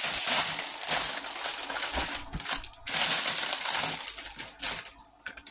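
Plastic bag crinkling and crackling as it is handled and opened, with a brief break about halfway and dying away near the end.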